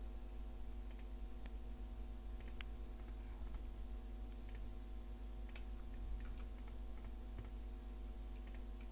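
Scattered computer mouse clicks and a few key presses, faint, over a steady low hum.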